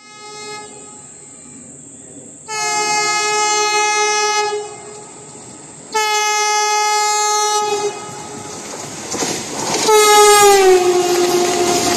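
Vande Bharat Express electric trainset sounding two long horn blasts as it approaches, then running through the station non-stop at about 120 km/h. A rising rush of wheels and air builds to a loud pass, with a third horn blast whose pitch falls as the train goes by.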